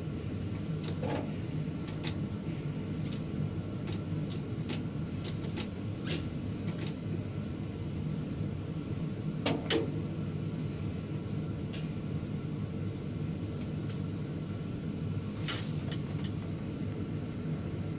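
Steady low mechanical hum inside a tower crane's cab as the hook is lowered, with a string of light clicks in the first seven seconds, a louder knock near the middle and a few more clicks near the end.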